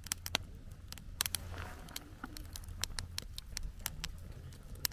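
Wood campfire crackling, with irregular sharp pops and snaps over a low steady rumble and a brief hiss about one and a half seconds in.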